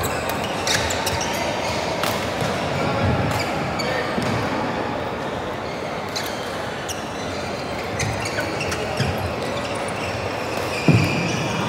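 Badminton being played in a large indoor hall: scattered sharp racket hits on a shuttlecock and footfalls on the wooden court, over a steady echoing hubbub of voices and play from neighbouring courts. A heavier thump comes near the end.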